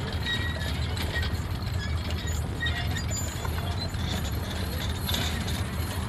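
A team of draught horses pulling a horse-drawn plough: scattered hoof falls and small clinks from the harness chains and plough, over a steady low rumble.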